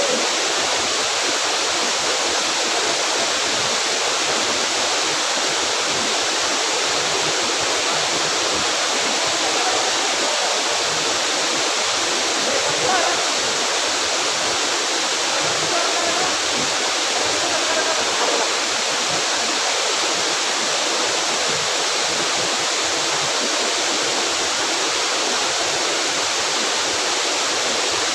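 Steady, unbroken rush of water falling at a waterfall.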